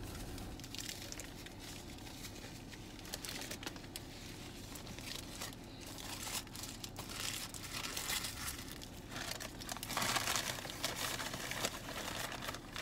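Paper taco wrappers crinkling as they are handled, in irregular crackles, with a louder stretch of crinkling about three-quarters of the way through.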